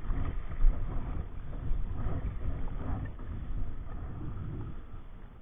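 Wind buffeting the microphone of a camera mounted on a drifting kayak, an uneven low rumble that eases off near the end.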